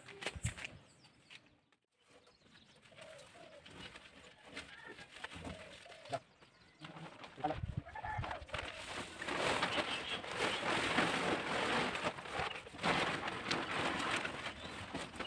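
Plastic tarpaulin rustling and crinkling as it is handled and pulled off a covered threshing machine, growing loud and continuous about nine seconds in. Before that, in the quieter stretch, a bird calls in the background.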